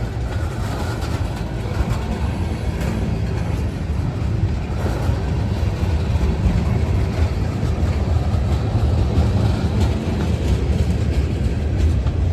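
Freight train cars rolling past: a steady low rumble of steel wheels on rail, with a few faint clicks from the wheels.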